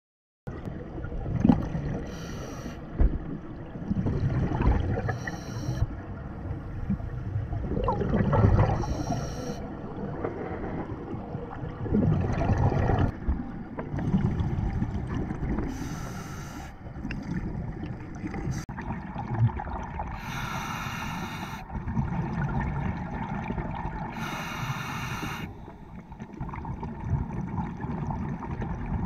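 Scuba diver breathing through a regulator underwater, with a burst of bubbles about every four seconds.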